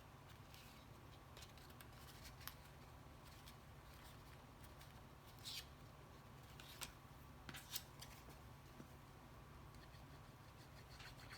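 Faint paper-crafting sounds over a quiet room hum: a few short, soft clicks and rustles of cardstock being handled, spaced a second or more apart.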